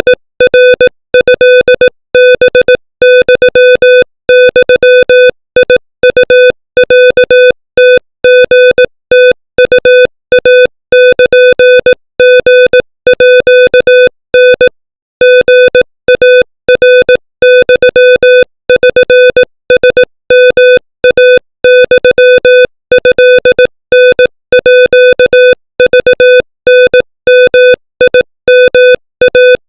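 Morse code sent at 25 words per minute: a single steady, buzzy beep keyed rapidly on and off in short and long elements, with brief gaps between letters and words.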